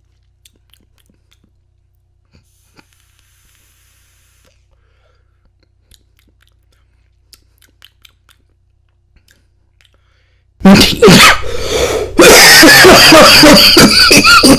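About ten seconds of near silence with a few faint clicks, then a sudden, very loud coughing fit from an elderly man, hacking with his voice straining through it, set off by a deep lung hit of vape vapour.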